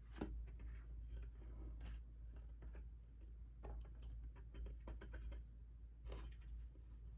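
Faint rustling and light clicks of trading cards and their packaging being handled, in scattered short bursts over a steady low hum.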